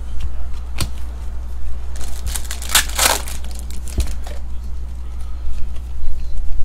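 Foil trading-card pack wrapper crinkling and tearing open in a burst of about a second near the middle, with a few short sharp clicks before and after, over a steady low hum.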